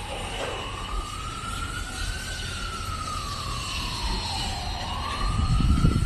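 Emergency vehicle siren in a slow wail, its pitch rising and falling in long sweeps. A low rumble builds near the end.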